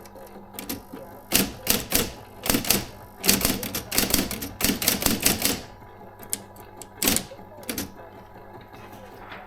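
Adler Junior Electric electric typewriter typing: a quick run of key strikes for several seconds, a pause, then a couple of single strikes.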